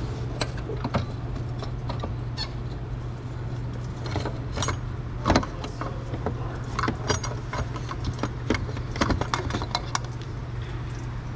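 Irregular clicks, knocks and rattles of a BMW E46's plastic thermostat housing being worked loose and pulled out of the engine bay by hand, plastic knocking against the engine's fittings. A steady low hum runs underneath.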